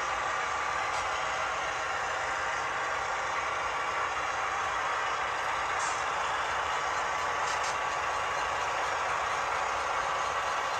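HO scale model freight train running past: the cars roll along the track with a steady mechanical drone and a few faint clicks.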